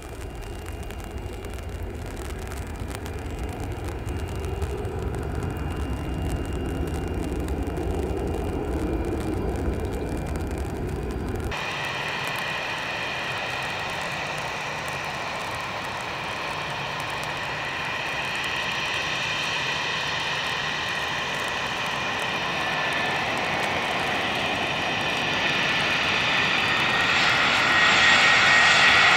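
Jet airliner engines rumbling low, then after a sudden cut a second airliner's engines whining, growing steadily louder as it approaches.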